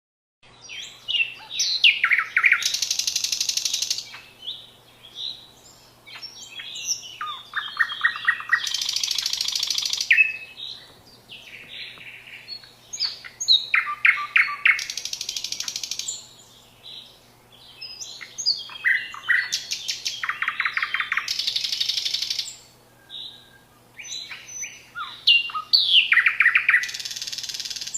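A songbird singing the same complex phrase over and over, about every six seconds: quick falling whistles, a rapid trill and a long harsh buzzy note about a second long.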